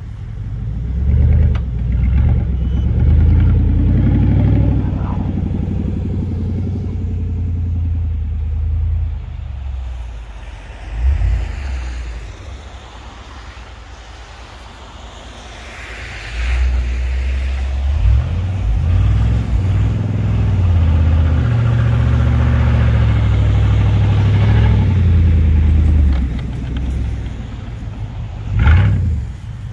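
Full-size Z71 pickup truck's engine running and revving as it pushes snow with a front-mounted plow. It is loud while the truck is close, drops away for a few seconds midway, then rises again, with brief louder surges.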